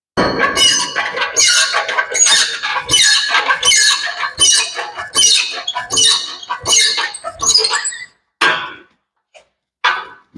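Small workshop crane squeaking in a regular rhythm, about one squeak every three-quarters of a second, as it lifts and moves an engine block; the squeaks thin out to a few scattered ones after about eight seconds.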